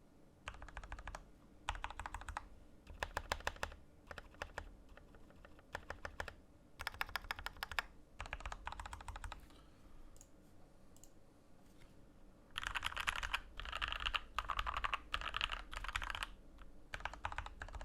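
Keychron K2 mechanical keyboard with lubed and filmed Gateron Red linear switches, foam in the case and PBT keycaps, typed on in bursts of rapid keystrokes with short pauses between them. The densest, loudest run of typing comes about two-thirds of the way through.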